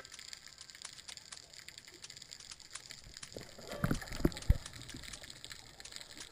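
Underwater ambience heard through a speargun-mounted camera: a steady crackle of faint clicks, with a brief cluster of low gurgling knocks about four seconds in.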